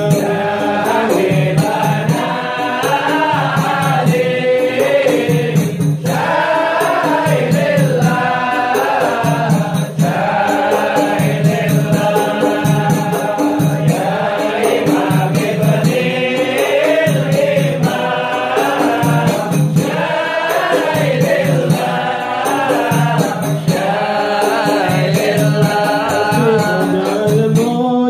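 A group of men singing an Arabic qasidah together, accompanied by hand-played frame drums keeping a steady beat.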